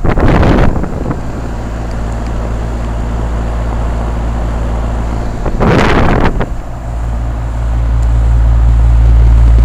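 Wind buffeting the microphone: a loud low rumble with gusts at the start and about six seconds in, building toward the end.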